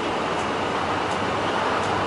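Inside a bus, the engine idles with a steady rumble while the turn-signal relay ticks faintly about once every 0.7 s, as the bus waits at a junction to turn.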